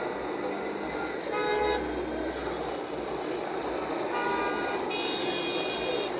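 City street traffic running steadily, with car horns honking three times: once about a second and a half in, and twice more in quick succession past the middle, the last one higher-pitched.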